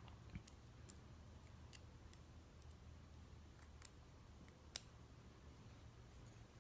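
Faint, scattered small metal clicks of tweezers and pin-tumbler lock parts being handled in a Kwikset lock cylinder, about half a dozen, with one sharper click a little before five seconds in, over a low steady hum.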